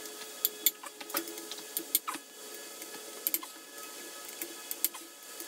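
Scattered metal clicks and clinks of a socket and breaker bar being fitted onto the crankshaft main bearing cap bolts of a bare engine block, over a faint steady hum.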